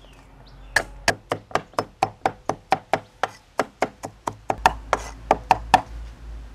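Cleaver chopping garlic on a round wooden chopping board: a fast run of sharp knocks, about five or six a second, starting about a second in and stopping near the end.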